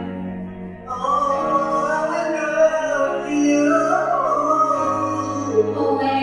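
Music: a voice sings a drawn-out, wavering melody over held instrumental notes. The voice comes in about a second in.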